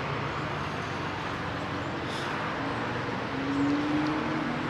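Cars running in a parking lot: a steady wash of traffic noise, with one engine's note slowly rising about three and a half seconds in.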